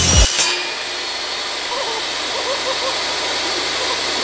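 Benchtop table saw running at full speed with no wood in the blade: a steady motor and blade whine.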